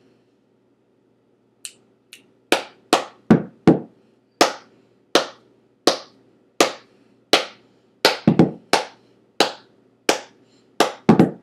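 Hand claps beating out a cheer's rhythm, led in by two light finger snaps: a quick run of four claps, then claps about one and a half a second with a few quicker doubles.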